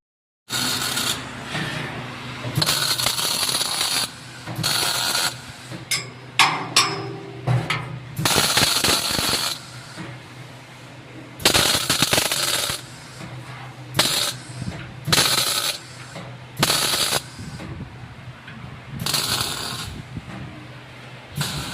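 CO2 (MIG) welder laying short tack welds: about ten bursts of arc crackle, each a second or so long, over a steady hum from the welding machine, with a few sharp metal clicks near the middle.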